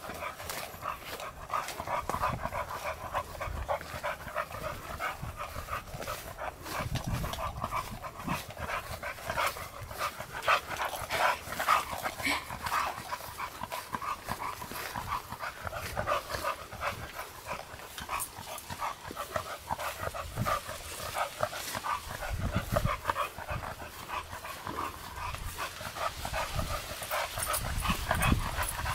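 Dog panting, with many short rapid clicks and rustles throughout.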